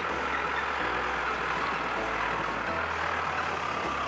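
Massey Ferguson tractor engine running steadily while its front loader handles a wrapped silage bale.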